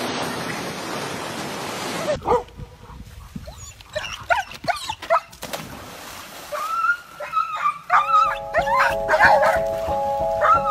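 Black Labrador whining and yelping in quick, high, wavering cries, agitated at a companion dog swinging out over the water. For the first two seconds, before the cries, waves wash on a beach.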